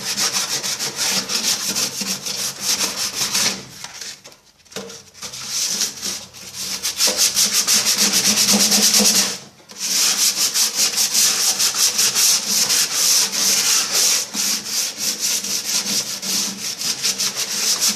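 Sandpaper rubbed by hand in rapid back-and-forth strokes over the painted steel inside a microwave oven's cavity, scraping off rust and flaking paint. The strokes stop briefly about four seconds in and again near the middle.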